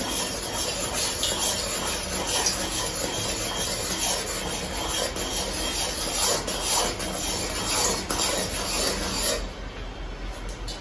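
Hot sugar syrup in a kadai, cooked to one-string consistency, hissing and bubbling steadily as gram flour is poured in and stirred with a steel ladle, with light scrapes of the ladle on the pan. The hiss drops off near the end.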